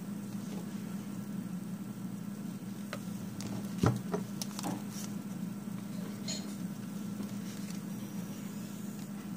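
Small clicks and taps of nail-stamping tools being handled on a metal stamping plate, with one louder knock about four seconds in, over a steady low hum.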